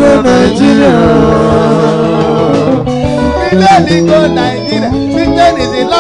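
A man singing a praise song into a microphone, with long held, sliding notes over instrumental accompaniment.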